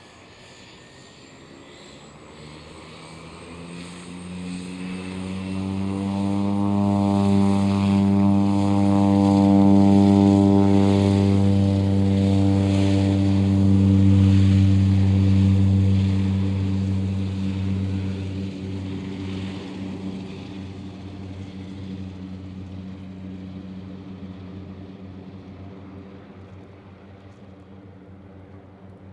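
De Havilland DHC-3 Otter floatplane's engine and propeller, a steady drone that builds over several seconds, is loudest around the middle, then slowly fades as the plane passes.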